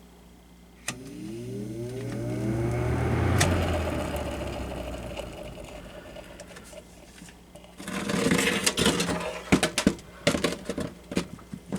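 20-inch Lasko 3733 box fan switched on at high speed with a click: the motor hums and the D-shaped blades spin up with a rising whine. About three and a half seconds in there is another click and the sound slowly dies away. Near the end come a series of knocks and clatter.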